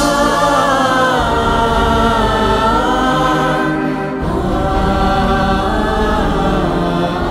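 Background music: voices chanting long, gliding notes over a steady low drone.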